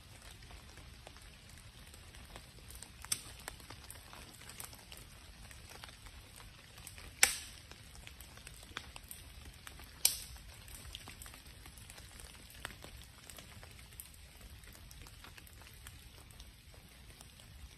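Wood campfire crackling, with a faint steady hiss and scattered sharp pops, the loudest about seven seconds in and another about ten seconds in.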